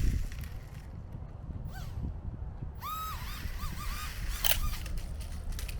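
Low rumble of wind on the microphone, with a few short chirps, one about two seconds in and a quick run of four or five about three seconds in, and a sharp click about four and a half seconds in.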